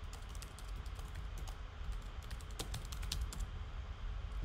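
Typing on a computer keyboard: quick, irregular key clicks over a low steady background hum.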